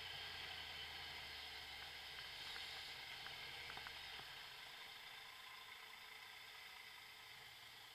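Faint, muffled riding noise picked up by a camera on a moving motorcycle: a steady hiss with a low rumble that fades out about four seconds in.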